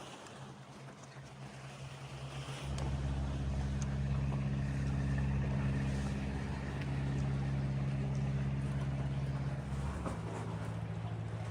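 A steady, low mechanical hum, like an engine running. It gets louder about three seconds in and drops a little in pitch near the end.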